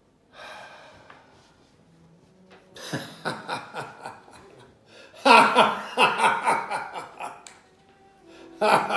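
A man laughing heartily in rapid bursts, with a short chuckle at the start and the loudest, longest peal about five seconds in.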